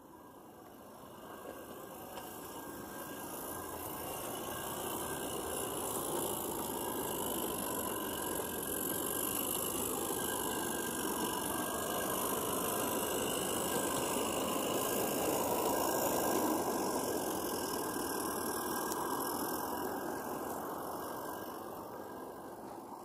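A Regner Konrad G-scale live-steam locomotive hauling a short train of open wagons runs past with a steady rush of steam and wheel noise. It grows louder to a peak about two-thirds of the way through, then fades away.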